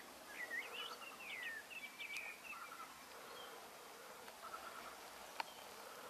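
Faint buzzing of bees at the blooming rhododendrons, with a songbird's short chirps during the first couple of seconds and a single sharp click about five seconds in.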